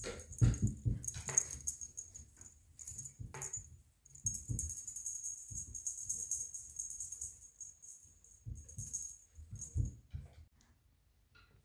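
A small bell on a cat toy jingling in repeated shaken bursts, stopping about ten seconds in, with dull low knocks underneath.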